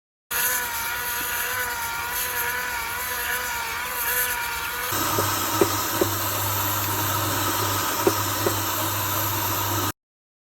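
A stone floor machine's motor running with a slightly wavering whine; about halfway through the sound cuts to a steadier low hum with hiss, broken by a few sharp clicks.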